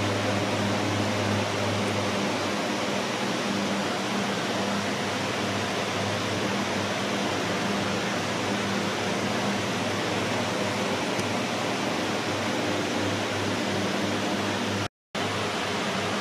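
Steady rushing noise with a low steady hum beneath it, dropping out for a moment near the end.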